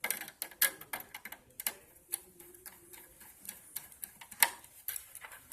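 Irregular small clicks and taps, one louder about four and a half seconds in, from hands working the DC power wire into the DC socket of a ticker display's controller card.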